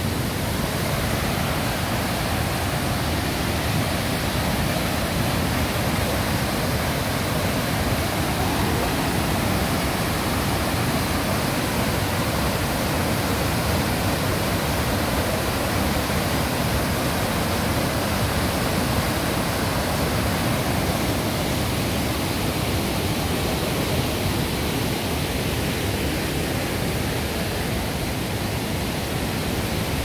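Düden Waterfall's falling water rushing: a loud, steady, unbroken wash of noise.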